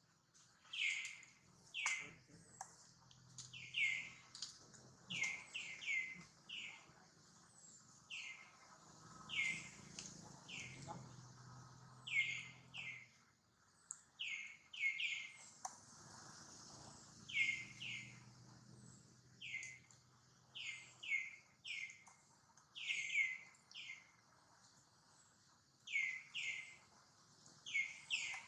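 A bird calling over and over: short, sharp notes that slur downward, often in quick twos and threes, every second or two, over a faint high hiss.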